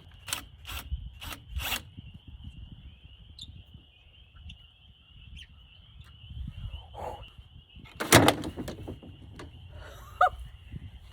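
Hand tools clicking and knocking against spring-loaded hinge hardware as it is worked loose: a few quick clicks at the start, a louder clatter about eight seconds in, and a short squeak near the end, over a steady high thin hum.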